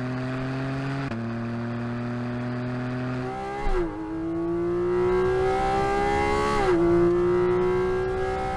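Porsche 718 Cayman GT4 RS's naturally aspirated 4.0-litre flat-six accelerating hard on track. The engine note climbs steadily in pitch and drops sharply at each upshift, about a second in, a little before four seconds and near seven seconds, and grows louder after the second shift.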